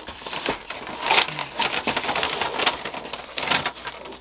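Brown packing paper and cellophane wrap crinkling and tearing as they are ripped open by hand, pushed apart with an airsoft box magazine, in irregular rustles with a few louder rips.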